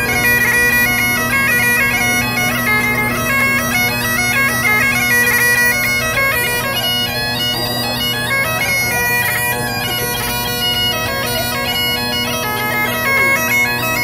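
Great Highland bagpipe playing a tune: a chanter melody stepping from note to note over the steady drones, without a break.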